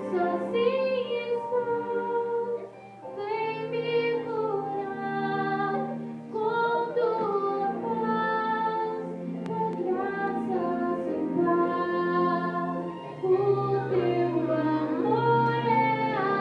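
A song: voices singing long held notes with accompaniment, pausing briefly between phrases about three seconds in.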